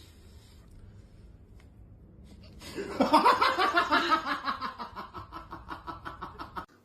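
A person laughing hard: a rapid run of laughs that starts loud about three seconds in, then fades and drops in pitch before it cuts off.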